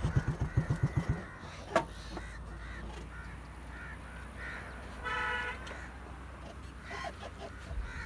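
Birds calling in the trees: repeated short chirps, and one longer, harsher call about five seconds in. A low engine thrum fades out in the first second, and there is a single sharp click shortly after.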